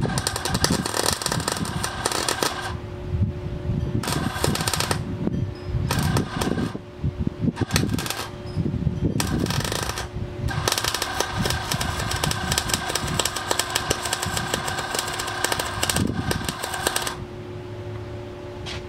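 Electric arc welder crackling and sizzling as it welds sheet metal in a car's engine bay. It comes in bursts: several short runs of a second or two, then one long run of about six seconds, with a steady hum in the pauses.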